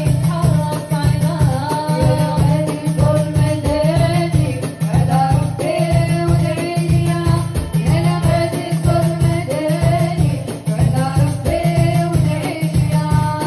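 A woman singing a nasheed into a microphone over live band accompaniment: an arranger keyboard and a steady, quick drum beat.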